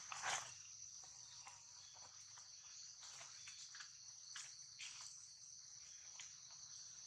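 Steady high-pitched chorus of insects droning in the background, with scattered short rustles and taps, the loudest a brief rustle about a third of a second in.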